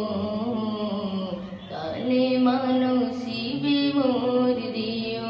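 A boy singing a Bengali Islamic song unaccompanied, holding long, drawn-out notes, with a short break about two seconds in before the next phrase.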